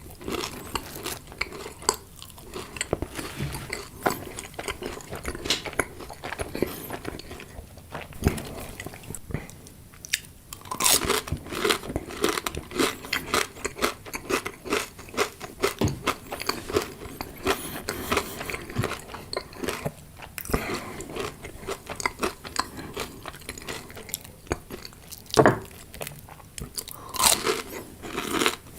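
A person biting and chewing crunchy fried food, a steady run of crackling crunches with a few louder bites, the loudest about 25 seconds in.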